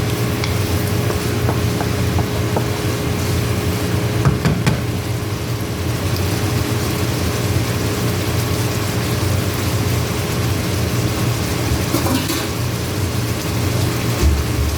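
Pork cooking in tomato sauce in a pan, sizzling and simmering over a steady low rumble, with a few light utensil knocks about four seconds in and again near twelve seconds.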